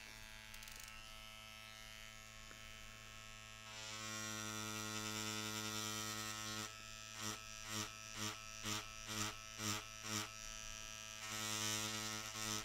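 Cartridge tattoo machine buzzing as its needle tools veg-tan leather. The buzz grows louder and brighter about four seconds in, then swells and fades about twice a second for a few seconds before steadying again.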